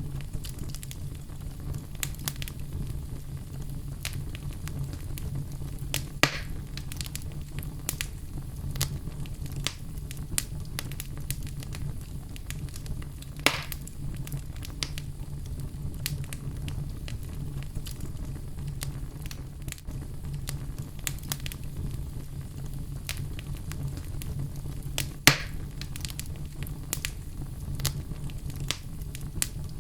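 Open fire burning, crackling with many small snaps over a steady low rumble. A few louder pops stand out, about six, thirteen and twenty-five seconds in.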